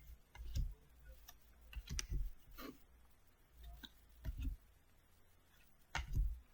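Faint clicks and soft rustles of Pokémon trading cards being handled and flipped through, with a few low thumps spread across it.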